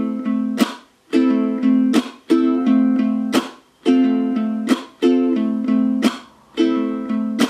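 Low-G ukulele strummed with the thumb in a repeating pattern. The chords ring out, cut by a sharp muted chunk about every one and a half seconds.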